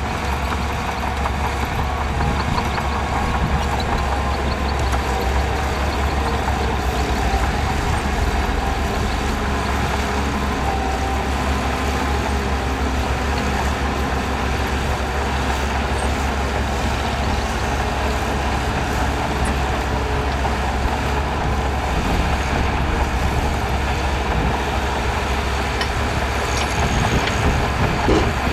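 Heavy diesel earthmoving machinery running steadily under load, a continuous deep engine rumble with no break.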